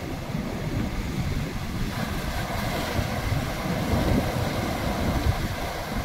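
Sea surf washing and foaming over rocks, the hiss of the wash growing fuller about two seconds in as a wave surges through, with wind rumbling on the microphone.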